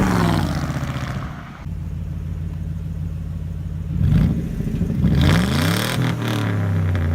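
2002 Mercury Grand Marquis's 4.6-litre V8 through true dual exhaust with glasspack mufflers, falling from a rev to a steady idle. It is blipped briefly about four seconds in, then revved up and let back down to idle a second later.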